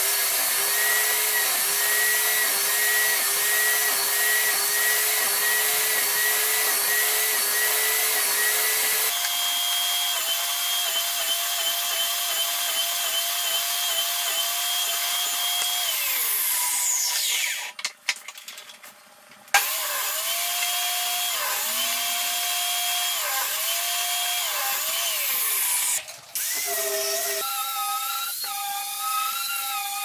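Table saw running with a crosscut sled, its motor pitch dipping again and again as the blade bites through wood for a series of notch cuts. About 16 s in it spins down and goes quiet, then starts up and cuts again. Near the end an angle grinder with a sanding disc runs against wood.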